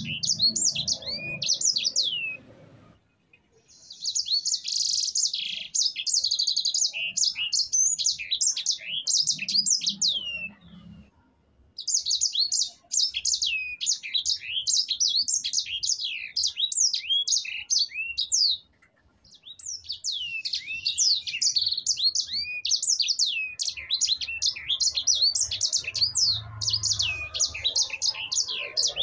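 Sanger finch (white-rumped seedeater) singing energetically in a long, rolling 'ngerol' song: rapid strings of high, downward-slurred notes. It sings four bouts, each broken off by a brief pause, the second opening with a denser, buzzier trill.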